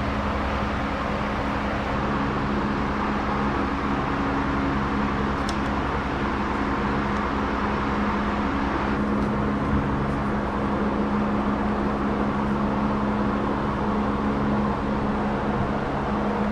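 Steady machine drone holding a few constant low tones over an even hiss, unchanging throughout.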